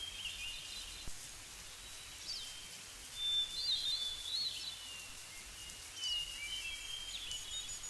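Soft bird chirps and short whistled calls over a faint, steady outdoor background, coming in small clusters.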